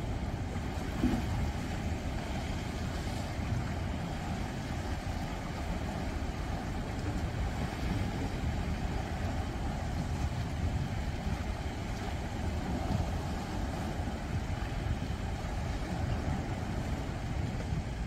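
Sea waves washing against breakwater rocks at night: a steady surf noise with a deep rumble underneath.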